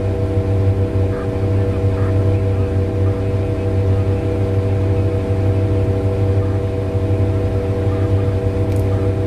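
Mining haul truck's diesel engine running steadily with a low, even hum, heard on board the truck; a faint click near the end.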